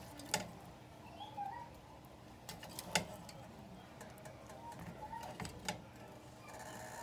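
Faint, sparse taps and knocks of tomatoes, tomatillos and red pepper pieces being pushed down into a steel pot by hand. A steady hiss comes in near the end.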